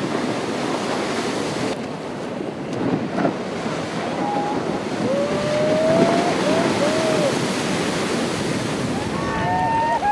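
Heavy ocean surf: large waves breaking and churning in a steady loud rush. A few short pitched calls that glide up and down sound over it around the middle and again near the end.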